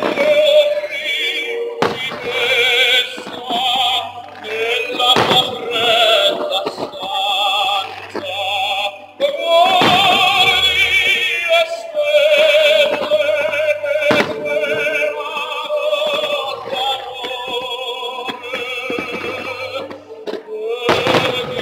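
Operatic singing with vibrato over a musical backing, broken by several loud firework bursts spread a few seconds apart.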